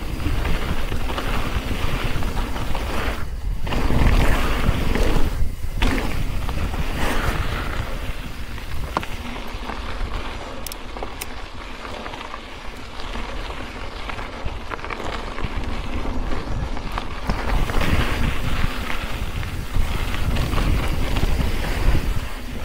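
Wind rushing over the camera microphone and rumbling trail noise from a mountain bike riding downhill on a dirt trail. The noise cuts out briefly twice, a few seconds in.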